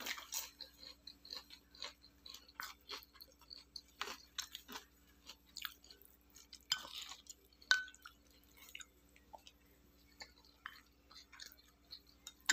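A person chewing food close to the microphone, with scattered small mouth and utensil clicks. A brief ringing clink a little before eight seconds in.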